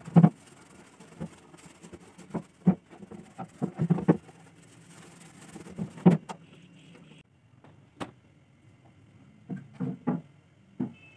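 Irregular knocks and bumps from a generator's steel fuel tank being scrubbed with a scouring pad and turned over by hand, the loudest thump just after the start. After about seven seconds the background drops and a few lighter knocks follow as small engine parts are handled on a table.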